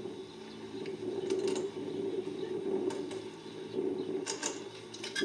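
A few light, irregularly spaced clicks over a steady low hum.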